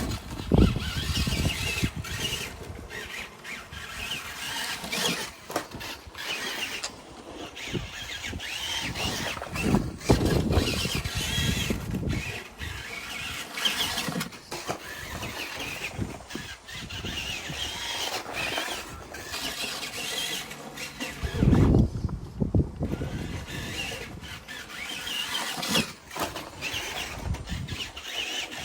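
Kyosho Raider electric RC buggy running laps, its Carson electric motor whining up and down with the throttle. Several low rumbling bursts come and go, the loudest about 22 seconds in.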